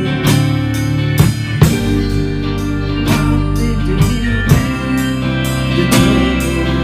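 A band playing a song: guitar with bass and drums, holding sustained notes under sharp drum and cymbal hits.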